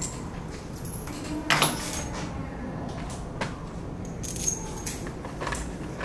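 Small metal bolts and nuts clinking in the hands as a nut is threaded onto a bolt: a few scattered sharp metallic clinks, the loudest about a second and a half in.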